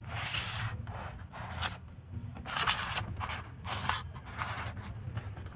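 Thin clear plastic packaging crinkling and rustling as a bag of toy cars is handled and slid across a wooden table, in about five short bursts. A steady low hum sits underneath.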